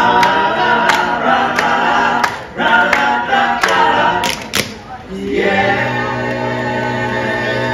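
Male barbershop quartet singing a cappella in close harmony, with sharp clicks on the beat for the first few seconds. After a brief break, the voices settle into one long held closing chord.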